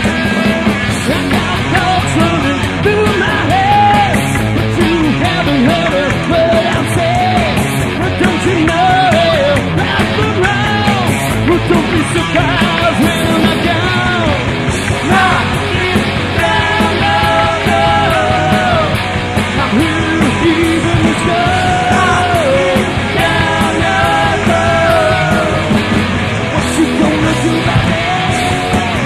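Three-piece rock band playing live: electric bass, electric guitar and drums. A lead line of held, bending notes sounds over them.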